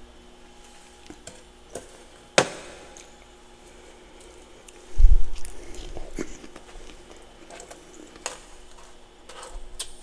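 A metal spoon scraping and clicking against packed freezer frost, with one sharp click a little over two seconds in. A heavy low thump comes about halfway through, followed by smaller scattered scrapes and taps.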